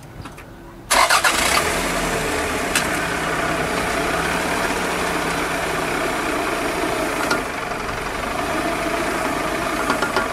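Toyota Harrier SXU10's engine starting about a second in, then running steadily.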